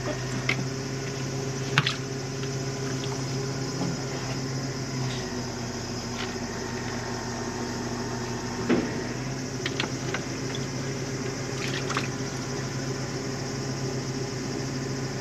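Boat's motor running steadily with a low hum and water washing, with a few sharp knocks; its pitch shifts slightly a couple of times.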